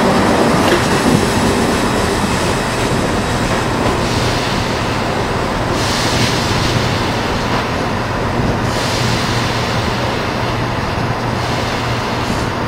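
Electric multiple-unit trains moving along station platforms: a steady rumble of wheels on rail over a low hum, with a brighter hiss between about four and nine seconds in.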